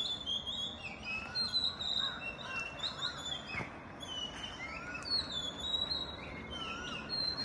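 Outdoor birdsong: several birds chirping and whistling, with many short high calls and some lower curving whistles repeating throughout.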